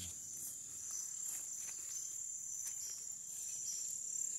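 Steady high-pitched trilling of an insect chorus, with a few faint light ticks.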